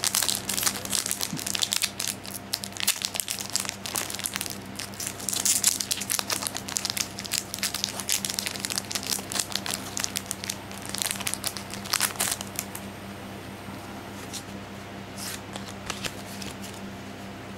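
Foil wrapper of a Pokémon Diamond & Pearl Great Encounters booster pack crinkling and tearing as it is ripped open by hand. After about thirteen seconds this gives way to quieter rustling and ticks of the cards being handled, over a low steady hum.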